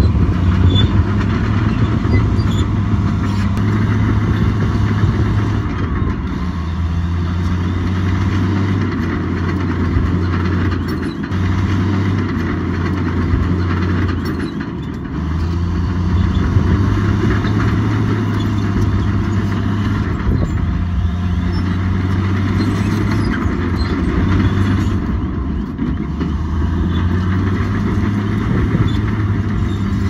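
Heavy diesel engine of earthmoving machinery working under changing load, its pitch stepping up and down every few seconds over a steady grinding noise.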